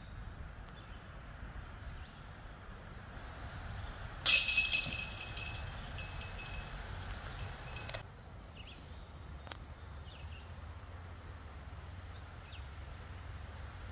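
A disc golf tee drive: a sudden loud rush of noise as the disc is ripped out of the hand, fading over a second or so and continuing faintly until it cuts off abruptly. Quiet woodland ambience before and after.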